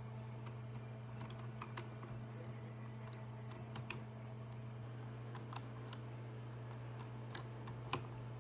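A low steady hum with scattered faint clicks and taps, a few more of them near the end.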